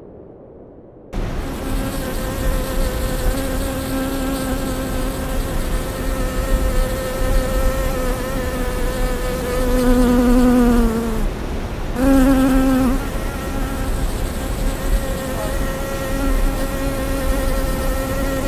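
Honeybee buzzing steadily, starting about a second in. Near the middle the pitch sags and the buzz breaks off for a moment, then resumes.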